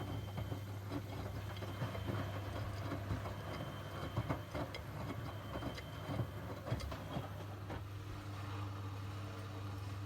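Miele washing machine running: a steady low hum with irregular knocks and clicks, which thin out after about eight seconds.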